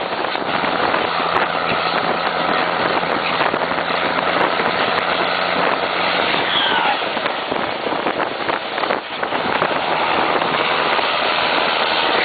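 Diesel engine of a Volkswagen Constellation truck running steadily while driving, mixed with road and wind noise.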